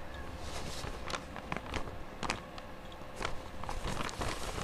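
Exam papers being handled and signed at a desk: irregular light rustles and small clicks, over room noise with a faint steady hum.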